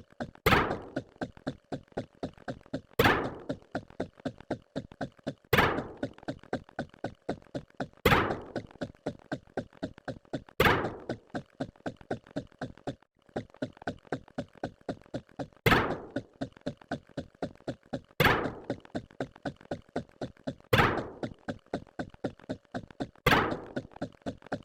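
A rapid, even run of short knocks, about four a second, with a louder hit about every two and a half seconds, repeating like a looped sound effect. The run breaks off briefly about halfway through.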